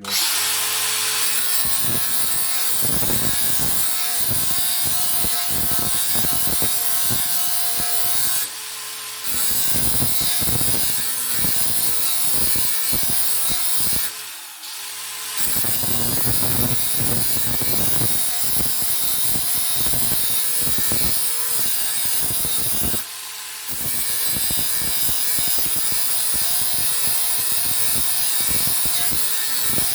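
DeWalt DCG412N 18V cordless angle grinder with a 115 mm cutting disc grinding along the edge of a steel mower blade to sharpen it. The motor whines steadily under a loud grinding hiss, easing off briefly three times as the disc comes off the work.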